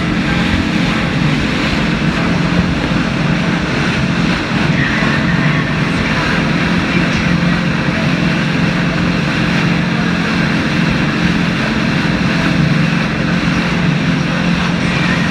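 Boat engine running with a steady, loud drone, under a constant rushing noise of wind and water.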